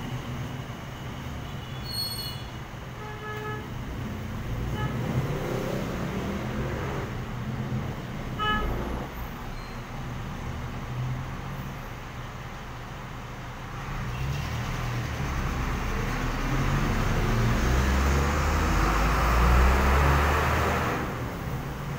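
Street traffic going by: motorcycle, jeepney and tricycle engines with a few short horn toots in the first several seconds. Near the end a heavy dump truck passes close, its engine rumble building to the loudest point and then dropping away sharply.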